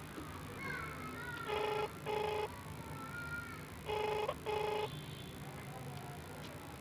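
Indian mobile ringback tone played through a phone's speaker: a double ring, two short buzzing tones then a pause, repeating twice. The call is ringing unanswered. Faint wavering tones come in between the rings.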